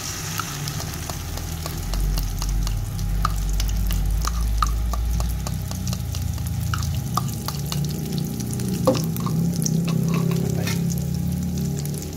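Omelette batter of beaten egg, terubuk and spice paste poured into hot oil in a wok, sizzling and crackling steadily as it fries. A metal spatula stirs it in the pan, with one sharp knock about nine seconds in.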